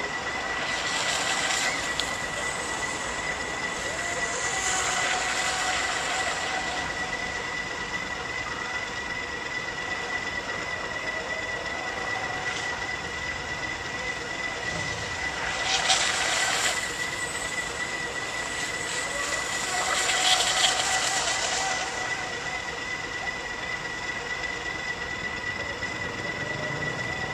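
A small boat's motor running steadily with a constant high whine, over a rushing hiss that swells up four times.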